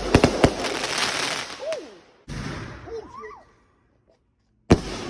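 Consumer fireworks going off: three sharp bangs in quick succession, then a crackling shower lasting about two seconds. After a short break, a single loud bang near the end fades out.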